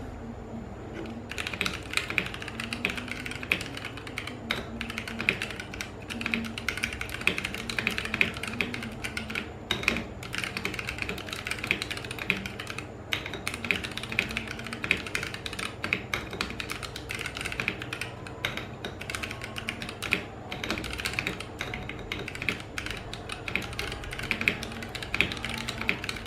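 Steady fast typing on a Vortex POK3R 60% mechanical keyboard with lubed Gateron Brown tactile switches and cherry-profile PBT keycaps: a dense run of key presses that starts about a second in and pauses briefly a couple of times. The keystrokes sound pretty quiet, dampened down rather than clacky.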